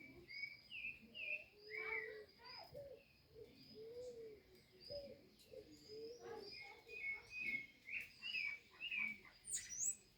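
Several small birds chirping and calling over one another in a continuous chorus of short, quick notes, with some lower gliding calls among them.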